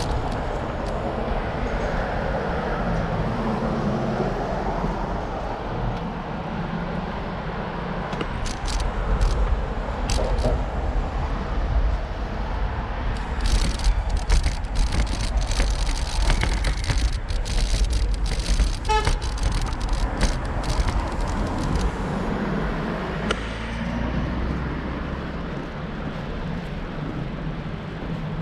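Road traffic heard from a bicycle ride: a steady, noisy rumble of passing cars, with a stretch of sharp clicks and rattles in the middle.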